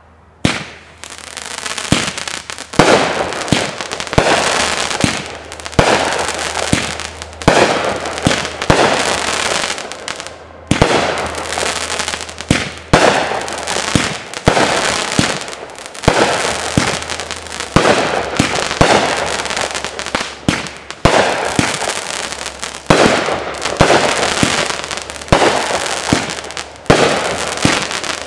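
Big Fireworks 'Flash Bang' 500-gram aerial repeater cake firing shot after shot. Sharp bangs come about every second or so over a continuous rush of noise.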